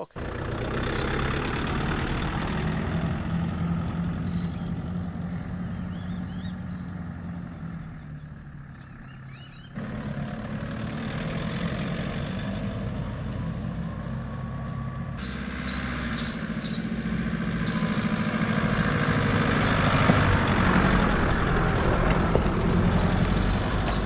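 Four-wheel drive being driven along a dirt bush track: engine running steadily with tyre noise on the gravel and dirt. The sound changes abruptly about ten seconds in and again about fifteen seconds in.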